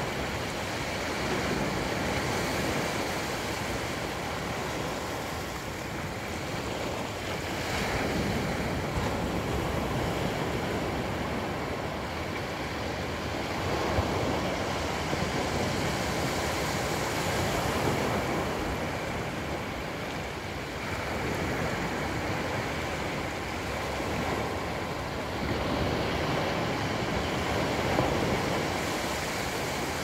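Small surf breaking and washing up a flat sandy beach: a continuous rush of water that swells and fades every few seconds.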